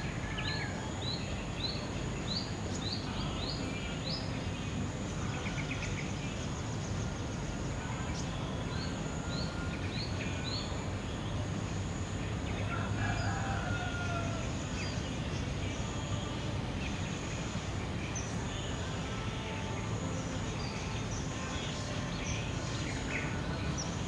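Birds calling over a steady low rumble. One bird gives a quick run of short, rising chirps at the start and another run about eight seconds in, with other calls scattered through and a thin, steady high tone throughout.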